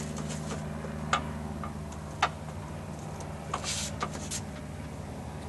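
Light clicks and knocks, about five spread over a few seconds, from a spirit level being handled against a metal screen base housing, over a steady low hum.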